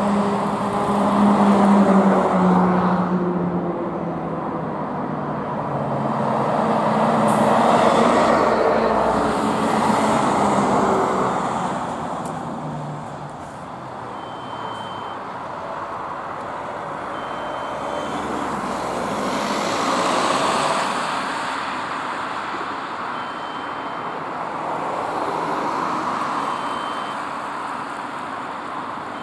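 A convoy of THW trucks and vans driving past one after another, their diesel engines and tyre noise swelling and fading several times as each vehicle passes.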